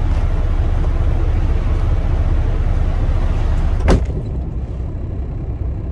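Semi truck's diesel engine idling, a steady low rumble. About four seconds in comes one sharp click, after which the rumble is quieter and duller.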